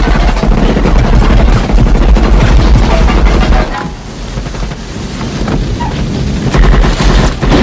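Tommy-gun (Thompson submachine gun) fire in rapid, sustained volleys with a heavy, bass-boosted low end. The firing drops off for a few seconds after the middle, then comes back loud briefly near the end.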